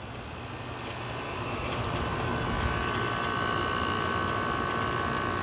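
Haier window air conditioner running on low cool, its compressor and fan giving a steady hum that grows louder, with a high whine joining about two seconds in.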